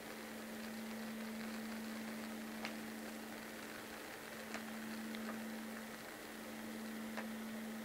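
A steady low electrical hum over faint hiss, with a few faint clicks scattered through it.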